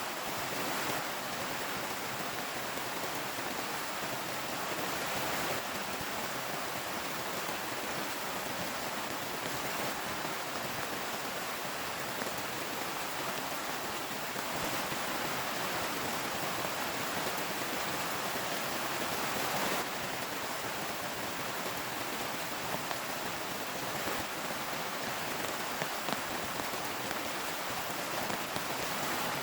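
Heavy rain falling steadily, an even rushing hiss, with a few sharper drop hits near the end.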